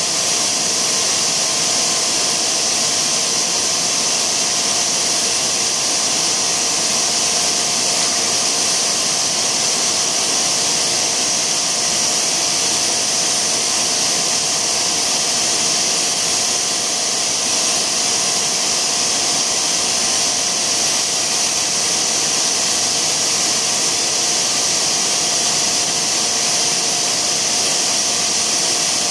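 Tongda TDW 350D extrusion blow moulding machine running steadily: an even, loud high hiss with a few constant humming tones underneath.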